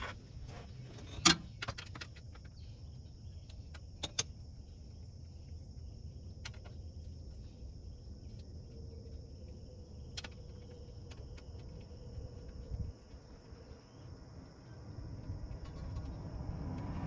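Insects droning steadily in a high register, with a few sharp metallic clinks from a hand ratchet and wrench at work on the transmission pan bolts, the loudest about a second in. A passing car's rumble starts to swell near the end.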